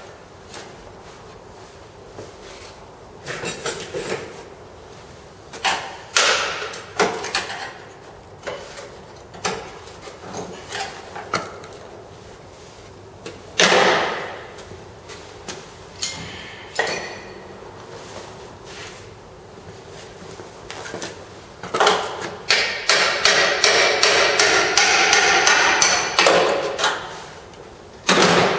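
Irregular knocks and clanks of metal on steel as the Land Rover Defender's radiator-frame brackets are worked with hand tools, with one heavy strike about halfway through. Near the end comes about five seconds of dense, continuous rattling metal noise.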